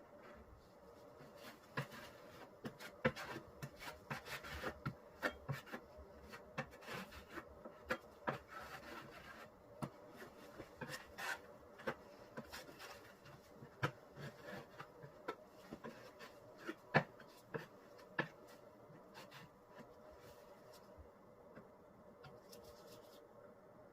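A blade spreading and scraping Henry Feather Finish cement across a laminate table top: irregular scrapes and sharp taps that thin out near the end, over a faint steady hum.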